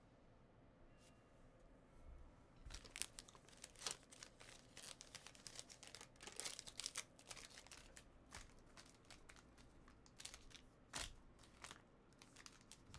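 Faint crinkling and tearing of trading-card pack wrappers and handling of the cards, a dense run of small crackles starting about two and a half seconds in.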